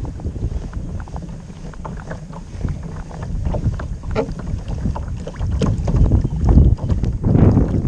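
Water splashing and lapping against a kayak's hull, with wind buffeting the microphone; the splashing gets louder in the second half.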